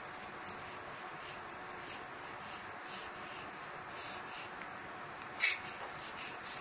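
Faint scratchy rustling, then one short, sharp dog sneeze about five and a half seconds in.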